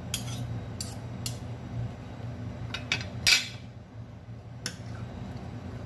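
A spoon clinking and scraping against a soup pot as the soup is scooped and stirred: a handful of separate clinks, the loudest about three seconds in, over a steady low hum.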